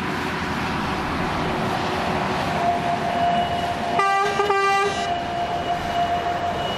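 Two coupled narrow-gauge sugar cane tramway diesel locomotives running past, their engines and wheels making a steady rumble. About four seconds in, a locomotive horn sounds two short blasts, and a thin steady high tone carries on through the second half.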